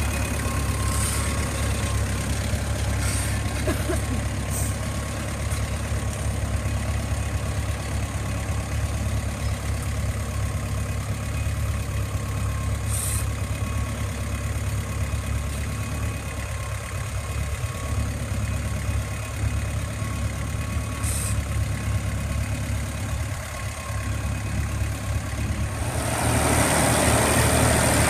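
Vintage Massey Ferguson tractor engine running steadily under load while pulling a plough. It is a low drone that gets clearly louder near the end as the tractor comes close.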